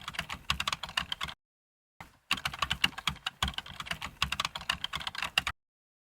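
Rapid, irregular light clicking and tapping, in two stretches that each cut off abruptly to silence, the second near the end.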